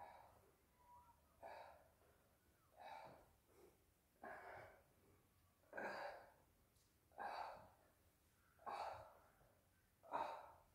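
A person's sharp breathy exhales, one with each punch of a shadowboxing drill, coming about every second and a half, eight in all.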